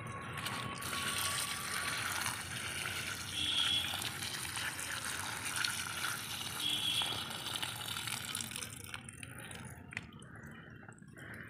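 Water running out through a hole in a clay pot and splashing steadily onto loose, freshly dug soil at the base of a sapling, thinning out near the end.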